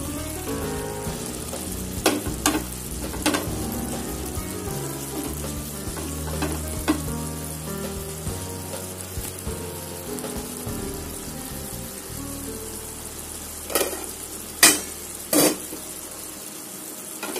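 Okra pieces and masala sizzling in a nonstick kadai, with a few sharp knocks about two, three and seven seconds in and the loudest knocks near the end.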